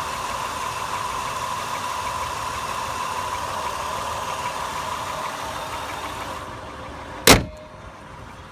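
2002 Acura TL's 3.2-litre V6 idling steadily with a slight knock that is still there as the engine nears operating temperature. Near the end the engine sound drops away and a single loud slam is heard.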